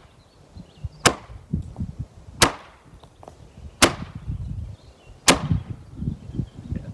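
Four sharp blows of a tool striking wood, about a second and a half apart, each with a short ringing tail, with handling and rustling between them: wood being split apart.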